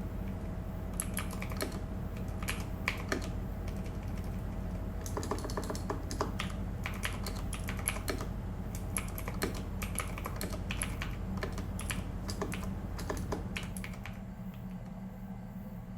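Typing on a Royal Kludge RK61 mechanical keyboard: irregular, rapid keystroke clicks that stop about three-quarters of the way through, over a steady low hum.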